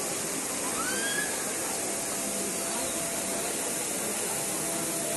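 Trevi Fountain's water cascading into its basin: a steady, even rushing hiss, with faint voices of a crowd beneath it.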